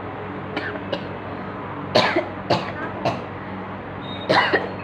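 A woman coughing: two faint coughs, then a series of short, sharp coughs from about two seconds in. The coughs come from irritating her nose to force a sneeze, and no sneeze follows.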